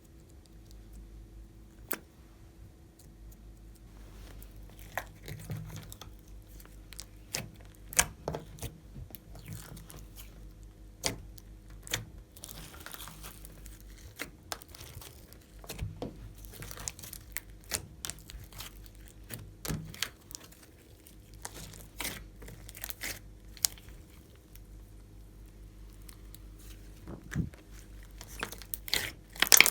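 Glossy slime being squeezed and kneaded by hand, giving irregular sticky clicks and crackles, loudest near the end. A faint steady low hum runs underneath.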